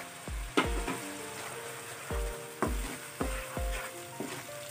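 A masala of tomato paste, ginger-garlic paste and spices sizzling in hot oil in a pan while being stirred with a wooden spoon. Background music with short held notes over a low beat sounds over the frying.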